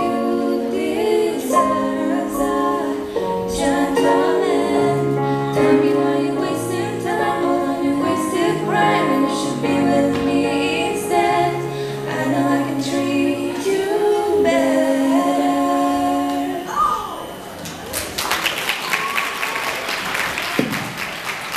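Two girls' voices singing a pop song over backing music, which ends about three-quarters of the way through. A second or so later audience applause breaks out and keeps going.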